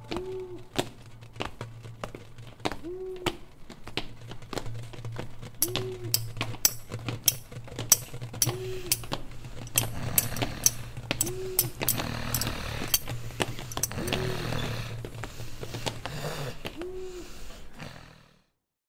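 A layered animation soundtrack of sound effects: a steady low drone, a short rise-and-fall tone repeating about every three seconds, and many irregular knocks and clicks. A rumbling noise swells in the middle, then everything fades out just before the end.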